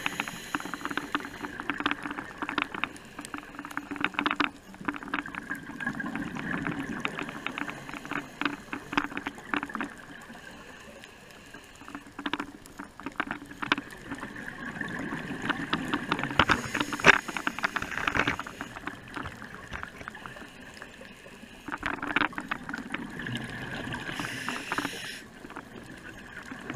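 Scuba diver's regulator breathing underwater: exhaled bubbles gurgle and crackle in bursts, with quieter gaps between breaths.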